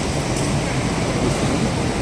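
City street noise: a steady rumble of traffic and running vehicle engines.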